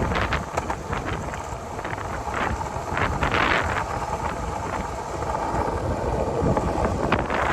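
Strong gusty wind buffeting the microphone, swelling and easing in gusts over a constant low rumble.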